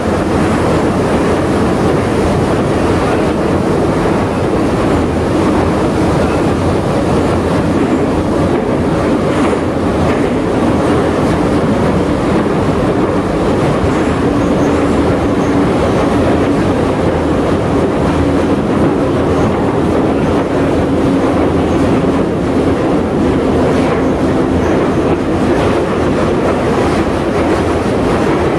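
Metro train running at speed through a tunnel, heard from inside the carriage: a steady loud rumble of wheels on rail with the clickety-clack of rail joints. A faint steady hum rises out of the rumble in the middle stretch and fades again.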